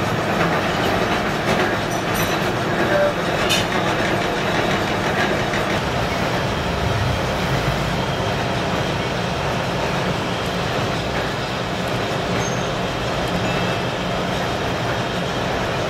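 Gear-hobbing machine running steadily, with a couple of light clicks in the first four seconds.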